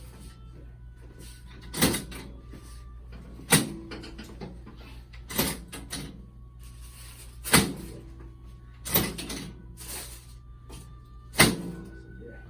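About six sharp knocks during a chiropractic adjustment, spaced roughly two seconds apart, each with a brief ringing tail.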